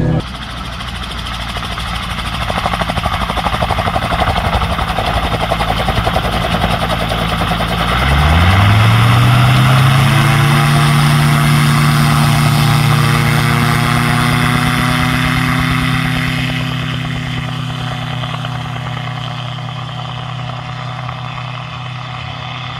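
Gyrocopter's Rotax 915 turbocharged four-cylinder engine and pusher propeller run up to takeoff power about eight seconds in, the pitch rising quickly and then holding steady, before fading as the aircraft rolls away down the grass strip. Before that there is a steady rushing noise.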